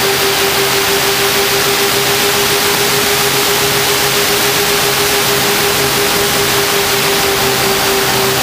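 A model plane's motor and propeller running at a steady pitch in flight, heard from the onboard camera as one steady hum under a loud rush of wind over the microphone.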